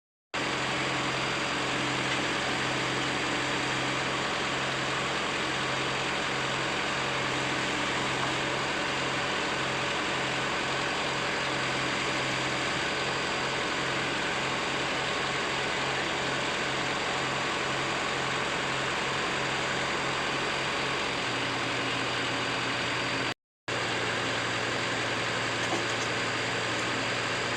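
Komatsu PC75UU compact excavator's diesel engine running steadily, its low hum shifting slightly about 21 seconds in. The sound cuts out for a moment near the end.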